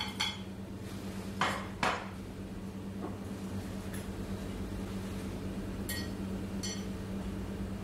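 Dishes and cutlery clinking and knocking: a clink at the start, two sharper knocks about a second and a half to two seconds in, and two ringing clinks near six and six and a half seconds, over a steady low hum.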